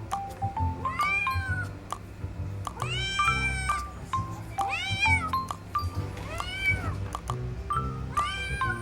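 Kitten meowing five times, each meow rising and then falling in pitch, the second one the longest, over background music of short chiming notes and a bass line.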